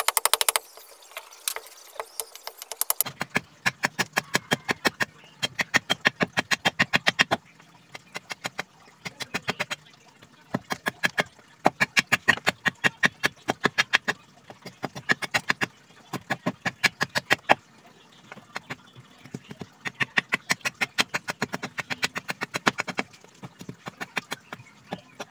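A heavy blade chopping into a small block of teak wood, roughing out a machete handle by hand. It comes as quick runs of sharp knocks, several a second, broken by short pauses.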